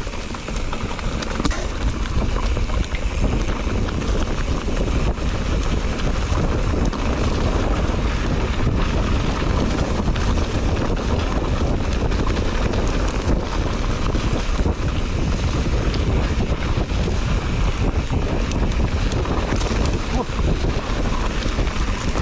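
Wind buffeting the microphone over the steady rumble of a mountain bike's knobby tyres rolling down a dirt and leaf-strewn trail, with a few sharp clicks and rattles.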